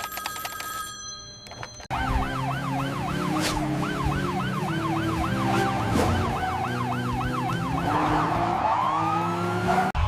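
Police car siren in a fast yelp, its pitch rising and falling about three times a second. It starts about two seconds in and turns into a slower rising sweep near the end.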